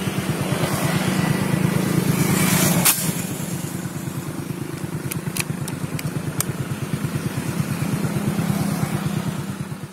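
A small engine running steadily with a fast, even pulsing beat, with a short burst of hissing noise about three seconds in and a few faint clicks later.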